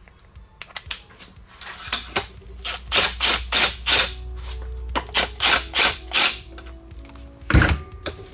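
A run of sharp metallic knocks, about three a second, then one heavier thud near the end, as the supercharger snout is worked onto its tight isolator bushing.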